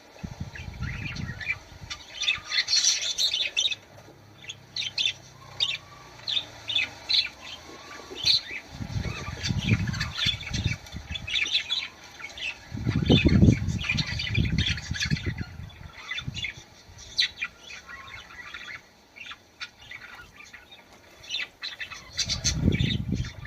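Budgerigars chirping and warbling in a busy stream of short high chirps and squawks. Low rumbling bursts come in four times: near the start, about nine and thirteen seconds in, and near the end.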